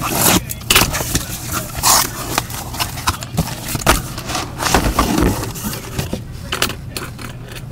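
Cardboard trading-card boxes being handled and set down on a counter: a run of irregular knocks, taps and short scrapes.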